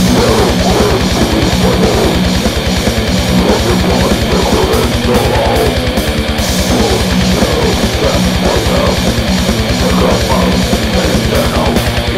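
Death metal recording: heavily distorted electric guitars over rapid, even kick-drum strikes and drums, loud and dense.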